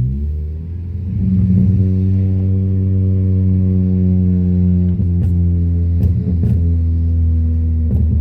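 Chevrolet Vectra 2.0 four-cylinder engine running through a 4-into-1 header and sport muffler, heard from inside the car as a steady exhaust drone at cruise. The drone dips briefly, picks up about a second in and then holds at a constant pitch, with a few short clicks near the middle and the end.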